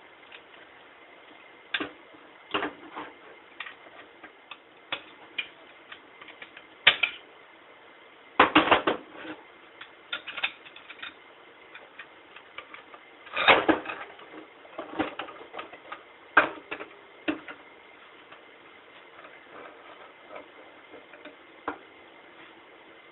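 Clutch plates being pulled out of a 700R4 automatic transmission and set down: irregular metallic clicks and clinks, with a couple of louder clattering runs about eight and thirteen seconds in.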